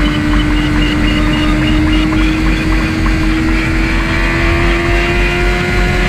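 Suzuki GSX-R600 inline-four engine under way at high revs, heard from on the bike, its note rising slowly and steadily as it gains speed, over heavy wind noise.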